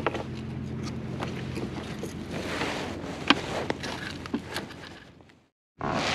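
Handling noises in a plastic kayak: scattered sharp knocks and rustles as a sheepshead is worked onto a rope stringer, over a steady hiss of wind and water. The sound fades out about five seconds in and breaks off, then wind hiss starts again.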